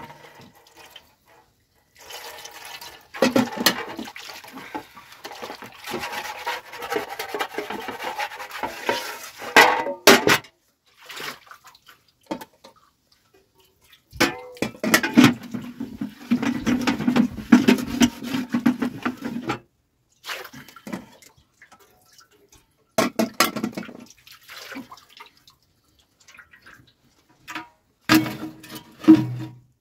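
Water poured in a thin stream from a metal kettle over hands and into a metal tray, in two long pours, with clinks and knocks of the metal tray and pots between them and near the end.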